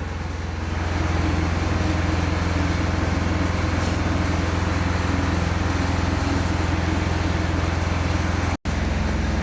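MIG welding arc from a Spartus Mig 210S welder, striking about a second in and then burning steadily with a buzzing hiss. It breaks off for an instant near the end.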